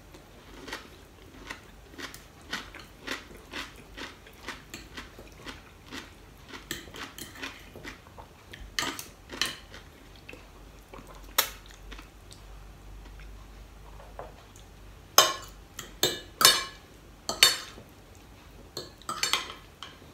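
Metal knife and fork clinking and scraping on a dinner plate while cutting food. Light clicks come about twice a second for the first several seconds, then sharper, louder clinks follow in the second half.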